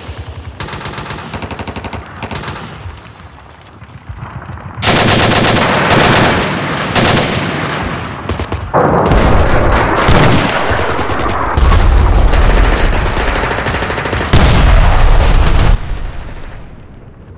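Bursts of rapid automatic gunfire, the shots running together. It is fainter at first and loud from about five seconds in, with deep low booms under the heaviest bursts in the second half, and it dies down near the end.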